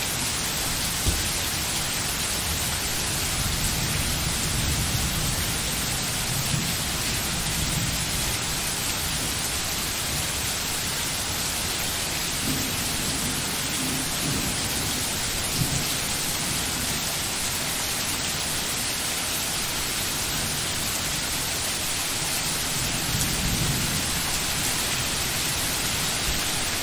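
Steady heavy rain with a dense, even hiss, and low rumbles of distant thunder swelling now and then. A few sharp drops tick out now and again.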